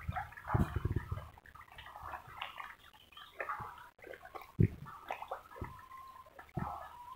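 Water splashing and sloshing irregularly as a dense crowd of fish thrashes at the surface of a concrete pond while feeding, with a few sharper splashes.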